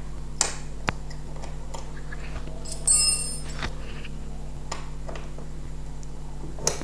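Light clicks and one ringing metallic clink about three seconds in, from small metal parts and a hex key being handled on the aluminium-and-acrylic frame of a DIY laser engraver during assembly, over a steady low hum.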